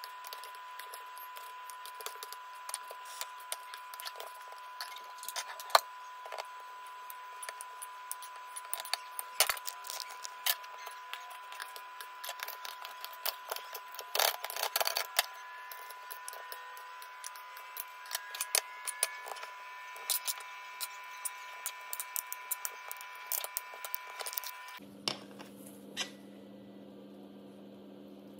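Many irregular clicks, taps and scrapes of a utensil against a metal baking tray and a glass baking dish as pieces of baked pumpkin samsa are cut and laid in, with a busy run of clatter midway. A steady thin whine runs underneath and cuts off near the end.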